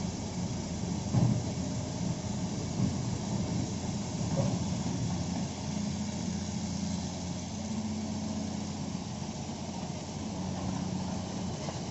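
A Hitachi excavator's diesel engine running steadily, with a short knock about a second in and another near three seconds.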